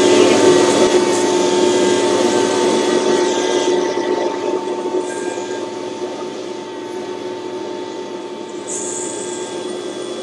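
Podiatry rotary drill with a cone-shaped burr running against the sole of a foot, filing down hard skin: a steady whine over a rasping hiss. It eases a little in loudness after about four seconds.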